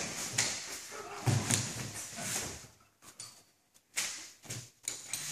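Scuffling and irregular thuds and knocks of a person being taken down onto padded martial-arts mats, with clothing rustling between the impacts.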